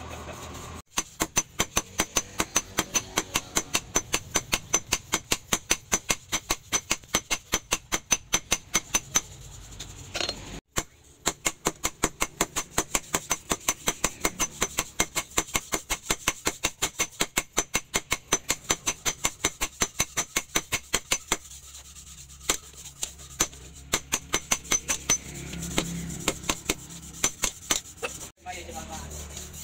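Hand hammer beating a red-hot leaf-spring steel sword blade on a steel post anvil: fast, even blows, about four a second, each with a high metallic ring. A short break comes about a third of the way in, and the blows grow sparser near the end.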